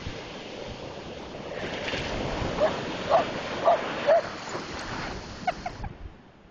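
Dog barking at breaking surf: about four short barks half a second apart over the rush of a wave, then a few fainter barks near the end.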